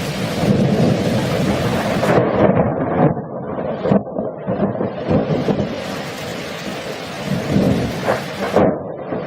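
Rolling thunder over steady rain, with sharp crackles of thunder now and then.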